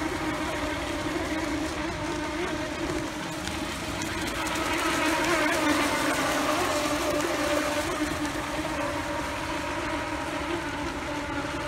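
Several Pro Boat Recoil radio-controlled racing boats running flat out: the steady whine of their brushless electric motors over the hiss of hulls and spray on the water. It grows louder about five to seven seconds in as one boat passes close.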